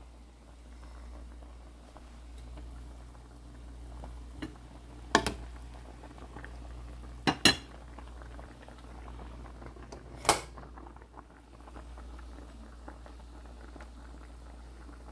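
A pot of soup bubbling on the stove, with a few sharp metallic clinks, a quick pair among them, like a ladle or spoon against the pot or dishes.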